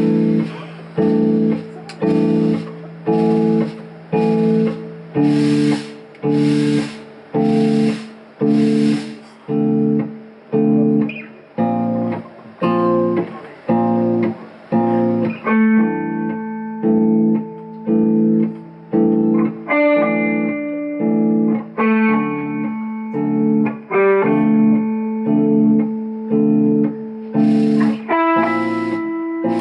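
Live instrumental rock band with two electric guitars, electric bass and drums: a clipped, stop-start chord figure hits about once a second, and about halfway in a lead guitar line of single held notes comes in over it.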